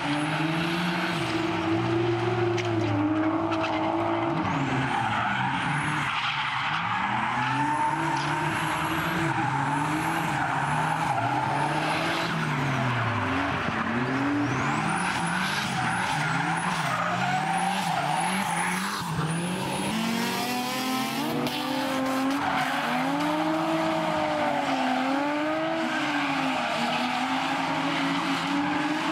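Drift cars' engines revving hard, their pitch swooping up and down again and again as the drivers work the throttle, over a continuous hiss and squeal of tires sliding sideways.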